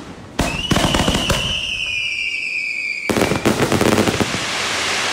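Aerial fireworks at close range: several sharp launch bangs, a whistle sliding slowly downward for about three seconds, then a loud shell burst about three seconds in, followed by dense crackling.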